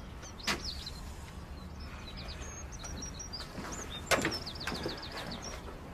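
Small birds chirping in short, quick repeated notes over a low steady hum, with two brief knocks, one about half a second in and one about four seconds in.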